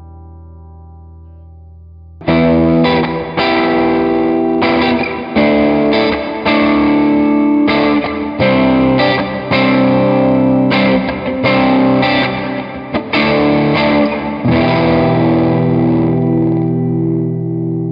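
Electric guitar played through a reverb pedal: a chord's reverb tail fading, then about two seconds in a much louder overdriven rhythm part with hard chord strokes through the JHS 3 Series Reverb, ending on a held chord left ringing out.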